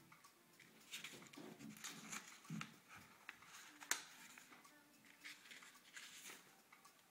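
Faint paper rustles from a black Moleskine notebook being handled, with one sharp click about four seconds in.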